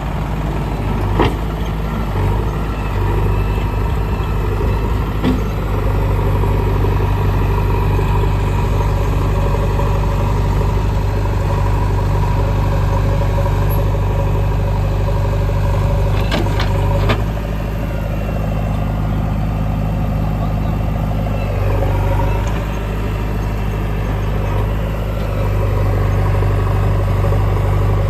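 Diesel engine of a JCB 3DX backhoe loader running steadily while it works, with a few sharp clanks: one about a second in, another near five seconds, and a cluster about two-thirds of the way through. Afterwards the engine note dips and rises for a few seconds.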